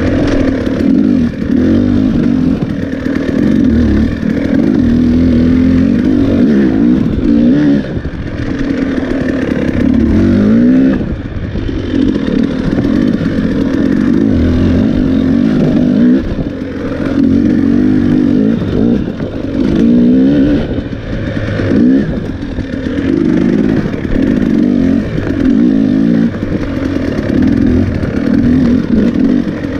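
Dirt bike engine ridden hard over an enduro trail, the revs rising and falling constantly and easing off briefly every few seconds, with clatter and knocks from the bike over rough ground.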